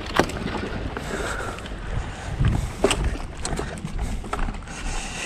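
Wind rumbling on the microphone, with a few sharp clicks and knocks.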